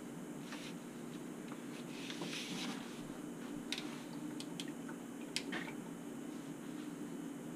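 A paintbrush being rinsed in a glass jar of water: a few light clicks of the brush against the glass and a brief rustle, over a steady low room hum.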